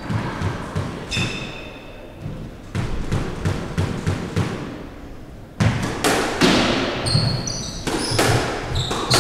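Squash ball being bounced on a wooden court floor before a serve. About halfway through, the serve and rally begin: sharp, echoing cracks of racket and ball off the walls, with shoes squeaking on the floor.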